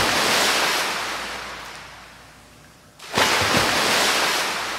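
Waves breaking twice: each a sudden rush of surf that fades away over a couple of seconds, the second coming about three seconds in.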